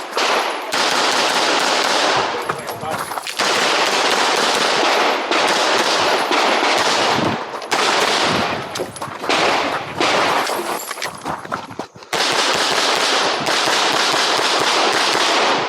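A Glock 17 Gen5 9mm pistol fired in quick strings during a timed practical-shooting course of fire. The shots come thick and fast, with short pauses about three, seven and twelve seconds in, typical of reloads or moving between shooting positions.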